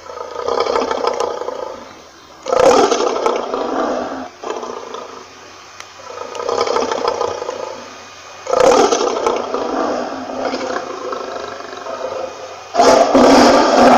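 Lion roaring repeatedly: a series of about five rough, breathy roars, some swelling up and fading, others starting abruptly. The loudest roar begins near the end.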